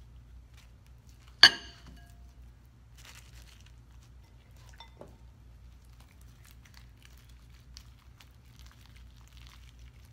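Soft squishing and crinkling of glittery slime being kneaded and pulled apart by hand. About a second and a half in comes one sharp clink that rings briefly, the loudest sound.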